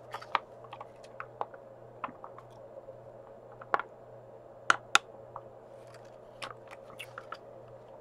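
Scattered small clicks and crackles as a foil-lined drink pouch is squeezed and sipped from its spout, with a few sharper clicks about halfway through, over a low steady hum.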